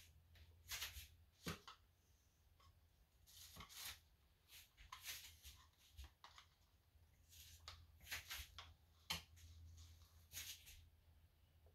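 Faint, irregular scrapes and rustles from handling plastic paint cups with wooden craft sticks, the sticks stirring the acrylic paint, over a low steady hum.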